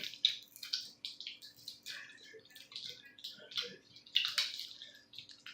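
Irregular soft crackling and clicking from chewy candy being unwrapped and eaten: wrapper crinkles and mouth noises, in quick uneven bursts.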